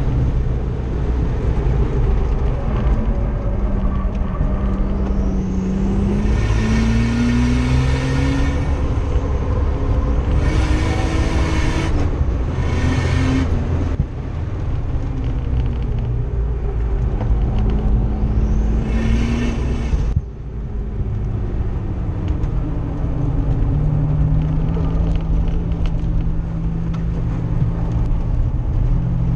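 Nissan R31 Skyline's engine heard from inside the cabin on a hot lap, revving hard and climbing through the gears with a high whine over it in stretches. Partway through, the revs drop sharply, then hold steady and lower.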